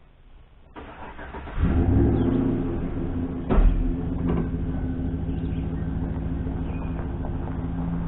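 Pickup truck engine cranked and started, revving briefly as it catches, then settling into a steady run as the truck pulls away. A single sharp clunk sounds about three and a half seconds in.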